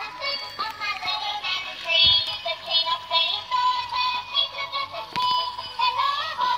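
Tinny electronic melody with a synthesized singing voice, played from the battery-powered doll bicycle toy's built-in sound chip and speaker. A short low thump about two seconds in.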